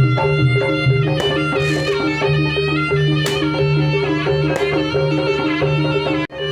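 Instrumental music: a melody over a steady, repeating low bass line. It cuts out for an instant near the end, then resumes.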